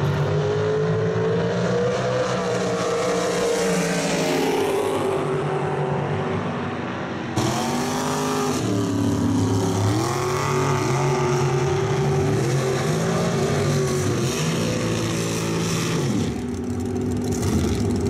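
Drag-racing cars' engines running hard on the strip, the pitch climbing and dropping back several times. A louder, harsher noise cuts in abruptly about seven seconds in.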